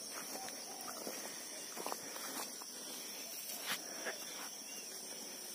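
Footsteps and swishing rustles of someone pushing through tall grass, with a few light crackles, over a steady high-pitched insect chorus.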